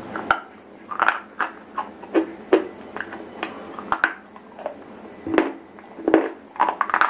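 Piece of white shele stone bitten and chewed right at a lapel microphone: an uneven run of about fifteen sharp, dry crunches.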